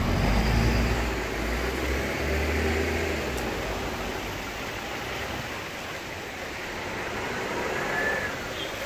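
Street traffic on a rain-wet road: a vehicle engine running close by for the first three seconds or so, then a steady hiss of traffic.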